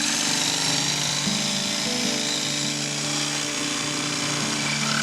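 Power tool running steadily while cutting into old wood to square out a damaged hole.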